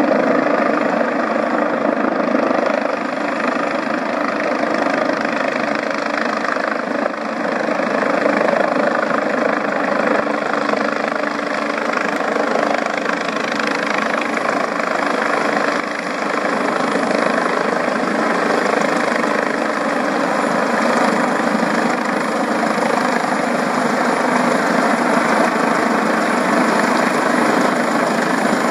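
Medical helicopter's rotors and engines running steadily as it flies in on its landing approach.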